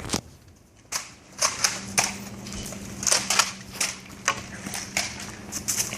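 Nerf dart blasters firing: a quick, irregular series of sharp pops and clacks.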